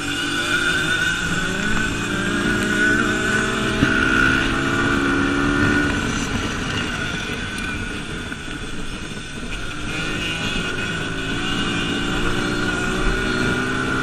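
Dirt bike engine heard on board while racing on a dirt track. The revs climb in the first couple of seconds, hold, ease off about two-thirds of the way through as the bike goes into a turn, then climb again.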